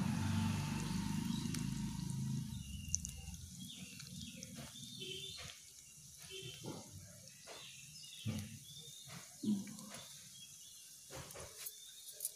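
Fish frying in hot oil in a small clay pot: a steady sizzle with scattered crackles and pops as the pieces are turned. A low rumble fills the first few seconds, then fades.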